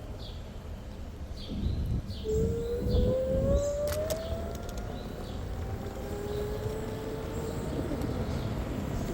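Speedway Mini 4 Pro electric scooter's motor whining as the scooter pulls away, the pitch climbing slowly and steadily as it gathers speed, over a low rumble of road and wind noise.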